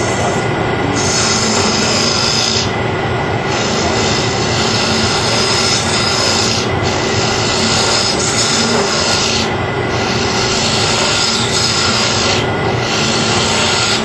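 Wood lathe running while a carbide-insert turning tool cuts into kiln-dried maple, hollowing a goblet. The steady hum of the lathe runs beneath a scraping, shaving noise that comes in about five passes of a few seconds each, with short breaks as the tool is lifted and repositioned.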